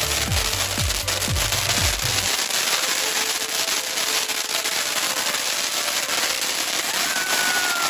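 Firework fountain hissing and crackling steadily as it sprays sparks. Electronic music with a heavy low beat plays over it for the first two seconds, and a brief high whistle sounds near the end.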